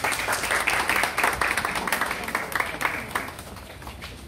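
A crowd applauding, dense clapping that dies away about three seconds in.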